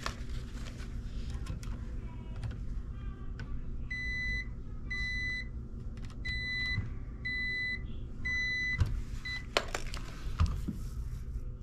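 Electrical test meter beeping: about six short, even-pitched beeps roughly one a second while its probes are held on the wiring in an outlet box. The last beep is cut short, followed by glove and wire handling rustles.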